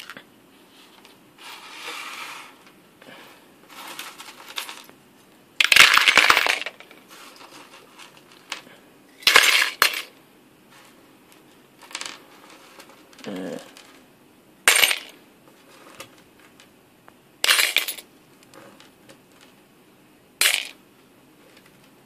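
Screws, bolts and small metal parts tipped and rattling into a bowl, in a series of short clinking clatters a few seconds apart, the longest and loudest near the start.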